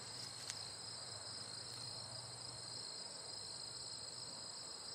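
Crickets trilling, a faint, steady, high-pitched sound with no pauses.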